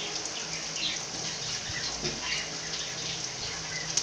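Sliced onions sizzling steadily in hot oil in a kadai as they sauté.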